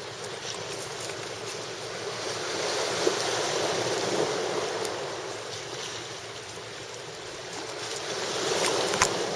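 Sea waves washing onto the shore, swelling twice, with a sharp click near the end.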